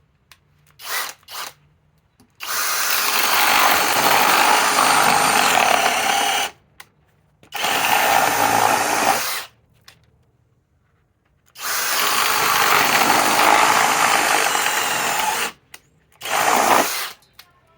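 Masterforce Boost cordless drill running an 11/16-inch bit into wood: two quick trigger blips about a second in, then four runs under load, two of them about four seconds long, with short stops between.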